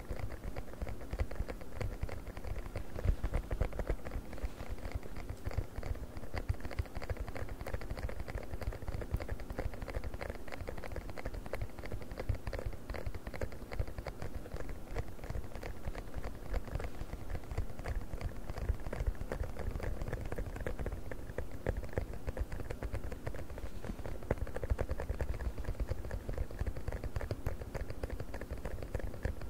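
Fast, continuous tapping of fingers on a silicone funnel: a dense stream of soft taps with no pauses.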